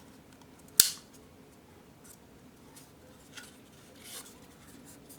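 A single sharp click about a second in, as the bird alarm clock is handled, followed by faint rubbing and small ticks of handling.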